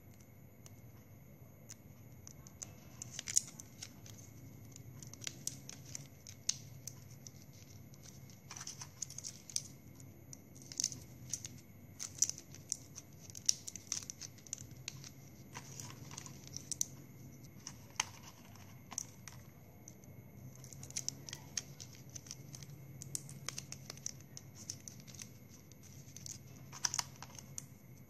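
Plastic drinking straws being handled and fitted together, with irregular light clicks and scratchy rustles as the pieces rub and tap against each other.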